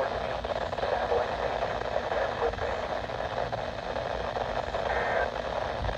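NOAA Weather Radio broadcast received weakly through heavy static, with a voice faint under the hiss. About five seconds in, a brief high tone sounds.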